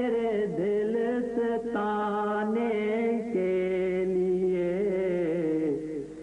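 Punjabi devotional song: a voice holds long, wavering notes between sung lines over a steady drone, which steps down in pitch about three seconds in.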